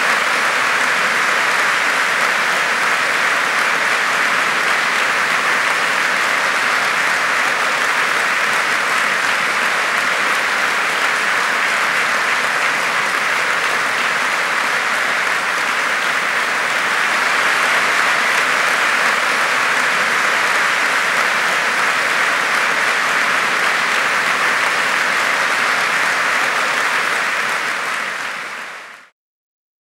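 A large audience applauding steadily, fading out near the end.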